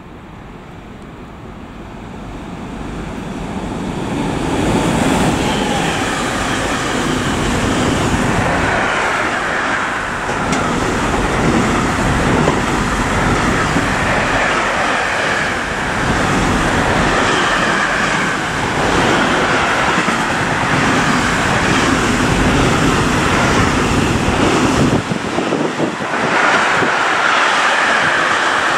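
Container freight train passing through at speed: the sound builds over the first few seconds as it approaches, then a loud, steady rumble and rattle of the wagons' wheels on the rails, swelling and easing as the wagons go by.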